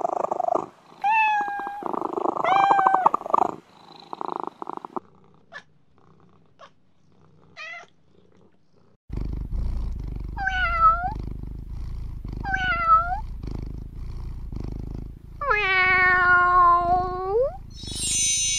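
Domestic cats purring and meowing. Two meows over a purr in the first few seconds, then after a quiet stretch a close, low, steady purr with two short meows and one long drawn-out meow near the end.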